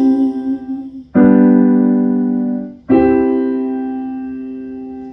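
Closing piano chords of a song: a held chord fades, a new chord is struck about a second in, and a final chord comes about three seconds in, ringing out and slowly dying away before cutting off at the end.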